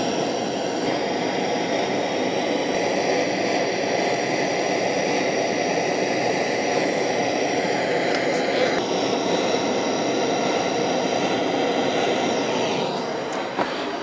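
Handheld propane torch flame burning steadily, a continuous rushing noise, as it heats the metal barrel of an Anderson power connector for soldering.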